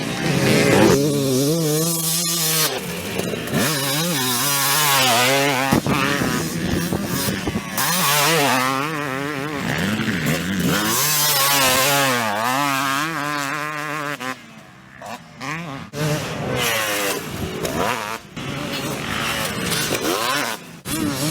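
Two-stroke motocross bike engine revving hard, its pitch climbing and falling over and over as the throttle is worked. About two-thirds of the way through it goes briefly quiet, then picks up again.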